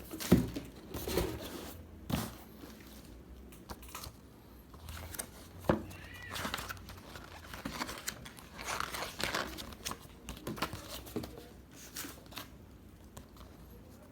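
Packaging being handled and crinkled during an unboxing, with irregular rustles and small clicks and knocks that thin out near the end.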